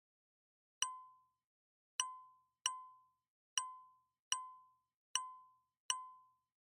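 A digital ding sound effect played seven times at uneven intervals, each a short bright chime that dies away within half a second.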